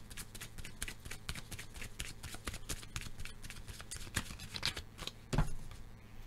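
A deck of cards being shuffled by hand: a fast, continuous run of small card clicks. It stops a little past five seconds in with a single thump.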